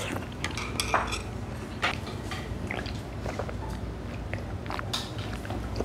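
Close-miked eating sounds: chewing with scattered small clicks of metal chopsticks against a bowl, then drinking from a soda can.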